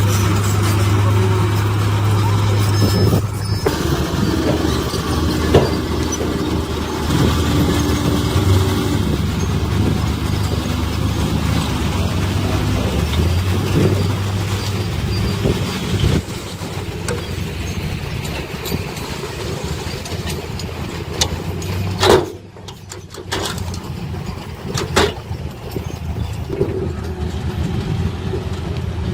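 Heavy diesel engines of earthmoving machinery at work: dump trucks and a bulldozer, running steadily with the engine note shifting several times. A short sharp sound comes about two-thirds of the way through, followed by a brief lull.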